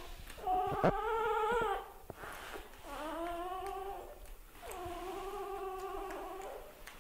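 Newborn puppy crying: three long, slightly wavering whines, each a second or two long.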